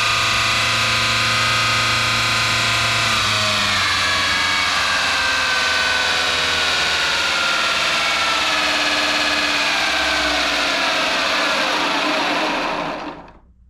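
3D-printed 170 mm electric ducted fan, driven by a 7070 motor on 22.2 volts, running at high speed with a whine of several tones. From about four seconds in, the pitch falls steadily as it spins down, and the sound dies away quickly near the end.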